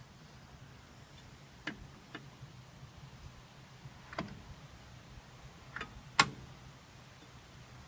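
A few short, sharp clicks and knocks of metal parts and hand tools during brake work, about five in all and spaced unevenly, the loudest about six seconds in, over a low steady hum.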